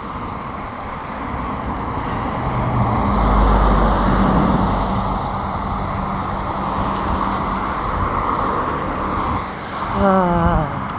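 Road traffic passing on a street. A vehicle goes by with a deep rumble at its loudest about three to five seconds in, over a steady hiss of traffic.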